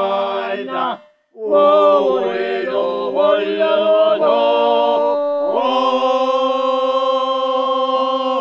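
Elderly men singing an unaccompanied Georgian folk song in several-part harmony. After a short break for breath about a second in, the voices move through a phrase and settle on a long held final chord that cuts off at the very end as the song finishes.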